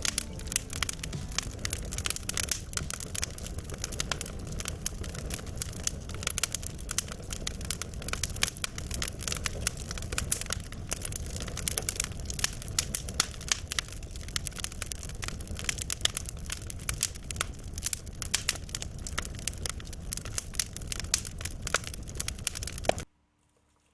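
Fire crackling, with dense irregular sharp pops over a low rumble; it cuts off abruptly near the end.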